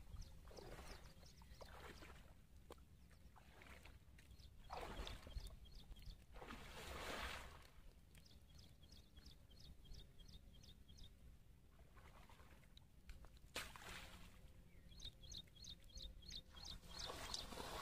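A bird calling in runs of short, quick, high notes, three times, over shallow water sloshing, with a few louder swishes of water.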